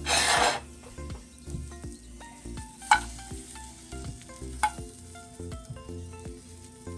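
Marble potatoes sizzling in a frying pan, with two sharp clicks of metal tongs about three and four and a half seconds in. A brief loud rush of noise comes right at the start.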